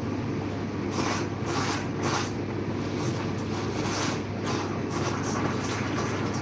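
Espresso machine running: a steady low hum, with the steam wand hissing in uneven surges from about a second in.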